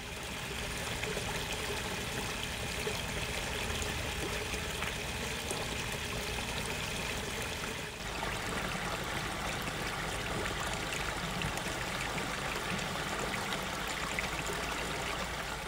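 Garden waterfall: water spilling over stone ledges and splashing into a pond with a steady rushing sound, its tone shifting slightly about eight seconds in.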